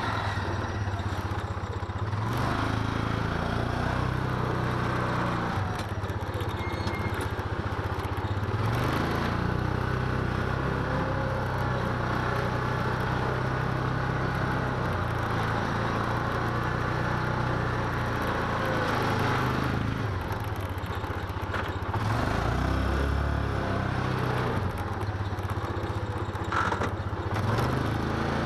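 Yamaha Rhino utility vehicle's single-cylinder engine running while pushing a snow plow blade, its note rising and falling a few times with the throttle.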